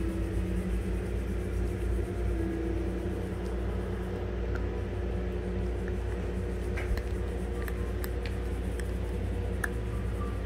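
A small dog gnawing a chew stick, with a few faint sharp clicks of teeth on the stick in the second half, over a steady low hum.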